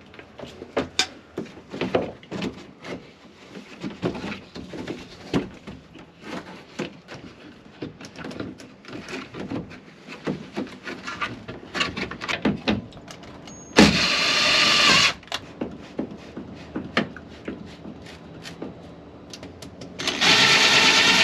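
Light clicks and knocks of a plastic ceiling fan housing and its wiring being handled and pressed into place. Then a cordless drill runs in two bursts to drive the mounting screws, about fourteen seconds in for just over a second and again near the end; these are the loudest sounds.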